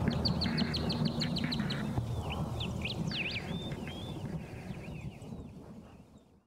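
Birds chirping: a quick run of short falling chirps, then a few whistled calls, over a low steady hum. The sound fades out to silence near the end.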